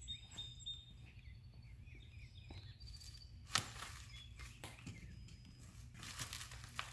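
Faint background ambience with birds chirping, a low steady hum and a few sharp clicks, the loudest about three and a half seconds in.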